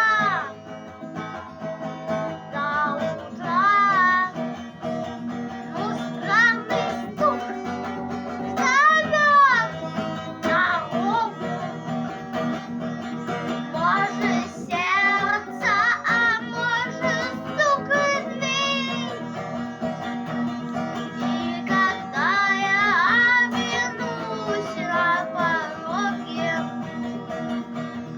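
A song: a voice singing with guitar accompaniment.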